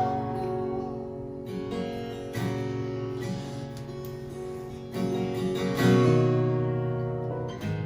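Acoustic guitar strumming chords as a song closes, with a sustained bass note under it.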